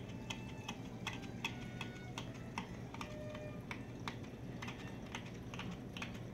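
Mag-Float magnetic aquarium cleaner with a razor blade scraping algae off the tank glass: irregular light clicks and ticks, a few a second, over a low steady hum.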